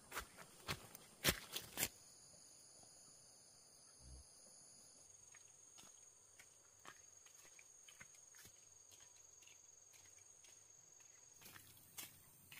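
A few sharp knocks in the first two seconds, then insects trilling on one steady high note, with scattered light clicks.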